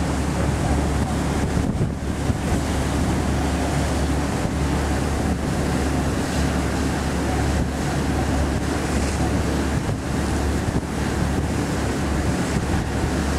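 Wind buffeting the microphone over the steady low drone of a motor boat's engine and the rush of water along the hull as the boat runs across open water.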